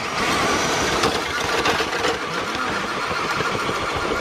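Electric 1.9-scale RC truck's motor and gearbox whining steadily under load as it drags a weighted pull sled, over a gritty rumble.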